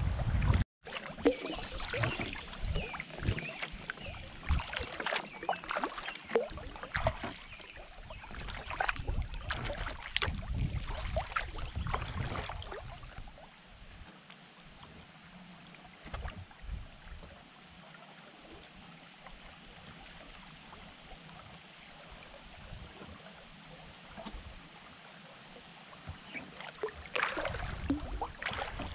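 Kayak paddle strokes splashing and dripping in the river, busy for the first dozen seconds, then a quieter stretch of gentle water, with the splashing picking up again near the end.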